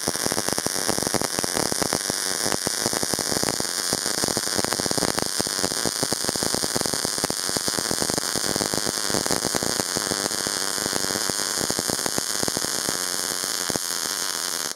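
MIG/MAG welding arc laying a fillet weld on 2 mm sheet at 20 volts and 6 metres per minute of wire feed: a steady, dense crackle of many tiny rapid clicks.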